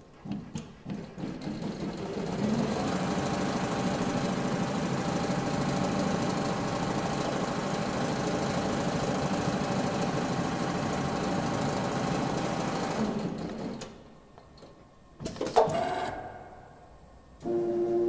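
Richpeace CNC upholstery sewing machine stitching leather, foam and non-woven fabric together. It starts with a few short stitch runs, then sews steadily at speed for about eleven seconds before stopping. A brief, sharp sound comes about a second and a half after it stops.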